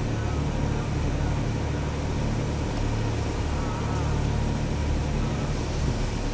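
A vehicle's engine running with a steady low drone.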